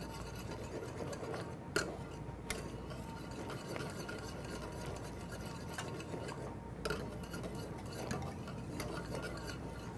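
Wire whisk stirring a thickening, boiling pineapple and cornstarch sauce in a metal skillet, a steady scraping against the pan with a few sharper clinks of the whisk on the rim or sides.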